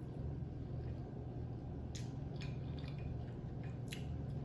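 A person chewing and sucking sauce off her fingers while eating pork neck bones, with a few soft wet smacks, over a steady low hum.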